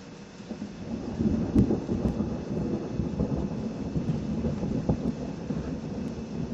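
Thunder rumbling in a thunderstorm: a low roll that builds about a second in and rolls on, crackling, over steady rain.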